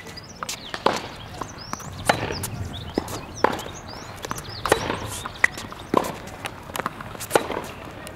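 Tennis rally on a hard court: sharp pops of racket strings striking the ball and the ball bouncing, about one every second and a quarter, with lighter footfalls and shoe scuffs between the hits.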